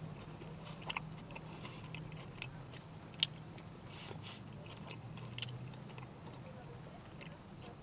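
Faint chewing of a mouthful of burger, with a few short sharp mouth clicks over a low steady hum.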